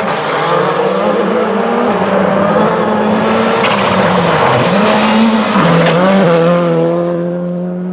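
Rally car engine at full attack on a gravel stage, its pitch rising and dropping with throttle and gear changes, with a loud hiss of tyres sliding on gravel in the middle; the sound eases near the end.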